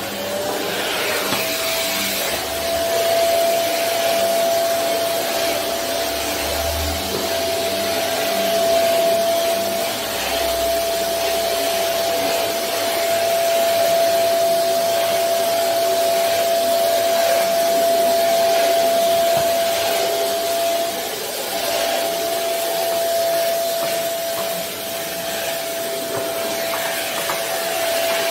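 Canister vacuum cleaner running: its motor finishes spinning up about a second in, then holds a steady whine over a rushing airflow noise while the floor head is pushed over a hard floor.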